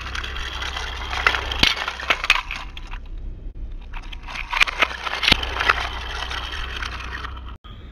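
Die-cast toy cars rattling down a plastic ramp track and clacking against a small plastic toy crate: two runs of quick clicks and knocks over a steady low rumble.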